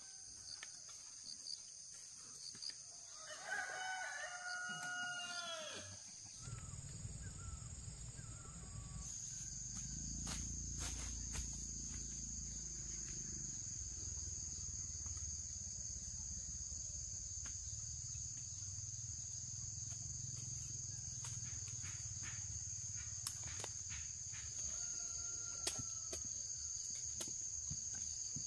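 A rooster crowing once, about three seconds in, over a steady high insect buzz; a fainter short call near the end. A low rumble runs from about six seconds on.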